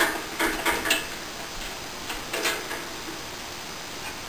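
A few metallic clicks and rattles as a drill-press chuck is closed by hand around a spring-loaded tap guide: a cluster in the first second and another about two and a half seconds in.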